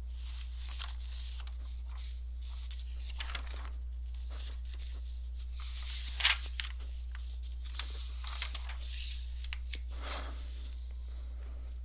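Irregular rustling and scratching of paper being handled, loudest in a short scrape about six seconds in, over a steady low hum.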